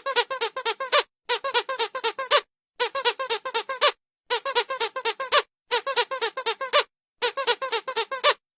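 Squeaky dog toy squeezed in quick runs: six bursts of about seven or eight high squeaks each, roughly a second long, separated by brief pauses.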